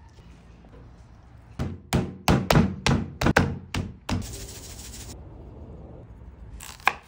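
About eight dull thuds in quick succession as raw skirt steak is handled on a plastic cutting board, then about a second of dry hissing as seasoning is shaken over the meat, and one more thud near the end.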